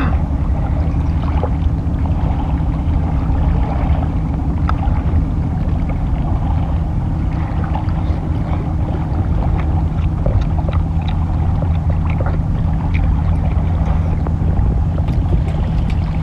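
Boat engine running with a steady low drone, with small clicks from shellfish being handled and eaten on top.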